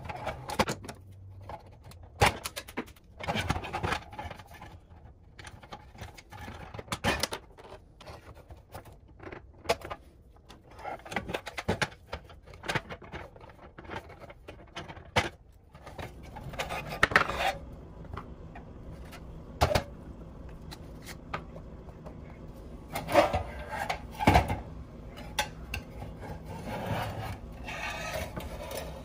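Hand disassembly of a 1970s Tonka pressed-steel toy dump truck: irregular scraping, rubbing and clicking of metal parts as the wheels and chassis are worked off with a small tool, with several sharp knocks of parts set down on a wooden workbench.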